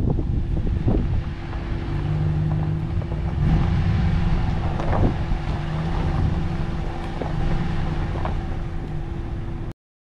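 A vehicle's engine running steadily as it drives slowly over rough grass, heard from inside the cab: a low drone with road noise and a few knocks and rattles. It cuts off suddenly near the end.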